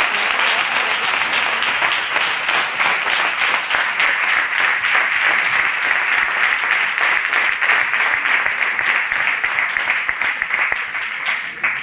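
Congregation applauding, a dense patter of many hands clapping that thins out near the end.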